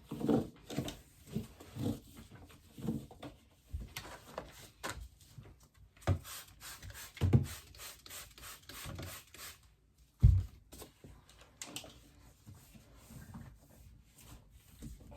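Scattered knocks, scrapes and rubbing of objects being handled and wiped while a mini fridge is cleaned out, with one sharp low thump about ten seconds in.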